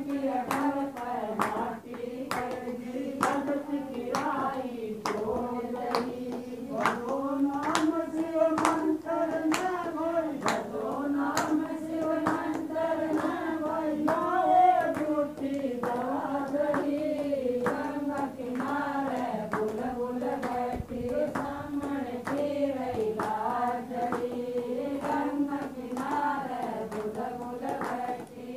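A group of women singing a Hindu devotional song (Shiv bhajan) together in unison, with steady hand-clapping keeping time at about one and a half claps a second.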